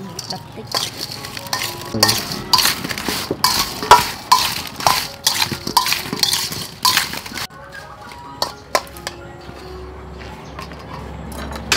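A metal spoon stirs peeled salak fruit coated in sugar and rock salt in a stainless steel bowl, clinking and scraping against the bowl over and over. About seven seconds in it stops, leaving a few lighter clinks.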